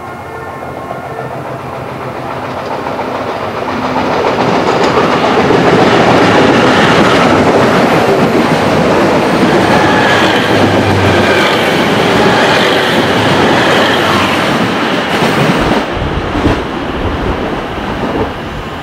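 JNR KiHa 181 series limited-express diesel railcars passing through a station: the diesel engine drone grows louder as the train approaches, then a loud, steady rush of wheels clattering over the rails as the cars go by, fading away. A few low thumps come near the end as the last car passes.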